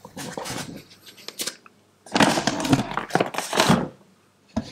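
Rummaging in a kitchen wall cupboard: items being moved and knocked about, with rustling and clattering in two spells, the second louder.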